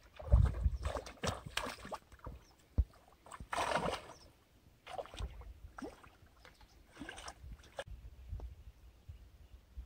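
Handfuls of rice bran bait splashing into shallow lake water, in several short splashes a second or two apart, the strongest about three and a half seconds in. A low buffeting on the microphone about half a second in.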